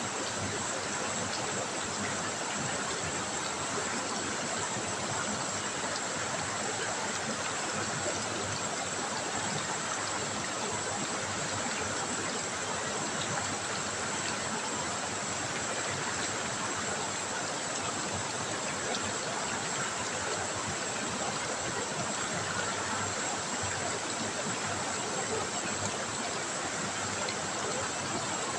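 River water trickling and rushing over stones: a steady, even babble.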